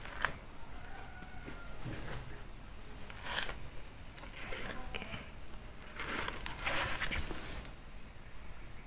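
A hand scraping and pushing through dry wood ash in a hearth, burying green mangoes to roast in the hot ash: a series of short rustling, scuffing strokes, with a sharp click just after the start.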